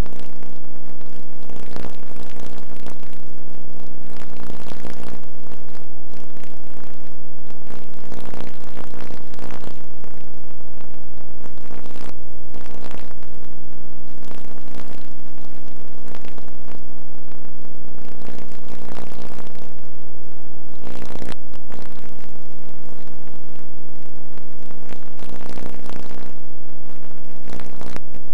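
A loud, steady buzzing hum with many crackles over it, with no change through the whole stretch.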